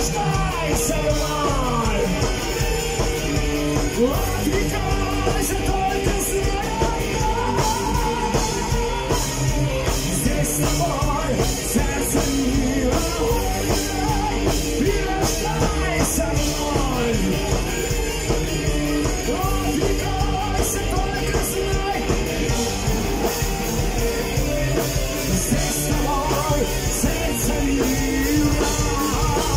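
A rock band playing live and loud: electric guitars, electric violin, keyboards and drum kit, with a male voice singing over them.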